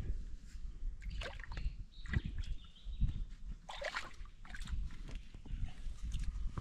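A man inflating an Intex inflatable kayak with an air pump: repeated rushes of pumped air about once a second, mixed with his grunting and moaning from the effort.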